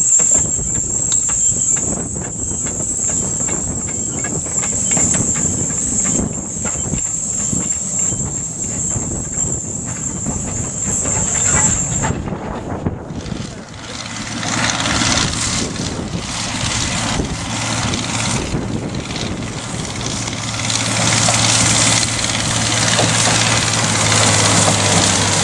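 Small narrow-gauge Barclay steam locomotive moving slowly off shed, with a thin steady high-pitched tone over a low rumble, cutting off about halfway. Then a rushing hiss over a steady low engine hum as the line's Simplex diesel locomotive approaches with its coaches.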